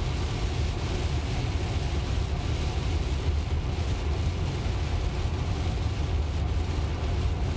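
Steady road and tyre noise heard inside the cabin of a Tesla electric car cruising at highway speed: a low rumble with a hiss above it, and no engine sound.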